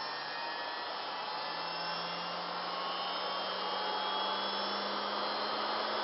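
Labnet Spectrafuge 24D microcentrifuge spinning up toward its 13,300 RPM maximum: a steady hiss with a low hum that rises slowly in pitch as the rotor speeds up. Exceptionally quiet.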